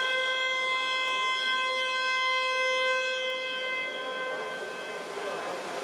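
Electronic game horn of the water polo timing system sounding one long steady blast that starts suddenly and fades out after about four to five seconds.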